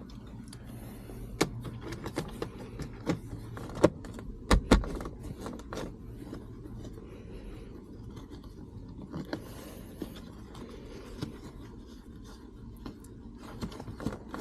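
Parts and tools being handled during reassembly of the shifter area: scattered light clicks, knocks and small rattles, with a few sharper knocks about four to five seconds in.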